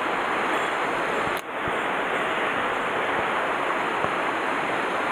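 Shallow mountain stream rushing steadily over rocks and riffles, a continuous even wash of water, with a brief dip about a second and a half in.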